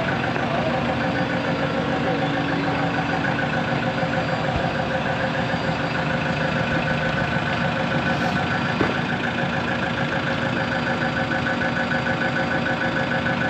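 Heavy-equipment diesel engine idling steadily, with a couple of faint sharp clicks partway through.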